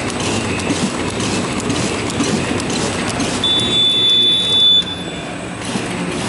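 Two-line side welding bag-making machine running, a steady mechanical clatter with rapid clicking. A high steady beep sounds about three and a half seconds in and lasts about a second and a half. After it the machine noise dips briefly, then picks up again.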